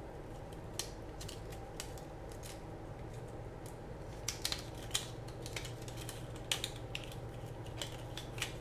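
Faint, scattered clicks and crinkles of clear plastic heat-shrink tubing being worked by hand over a small radio receiver board and its wires, over a steady low hum.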